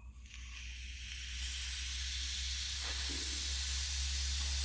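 Air hissing out of a radiator bleed valve as it is opened, swelling over the first second or so and then holding steady.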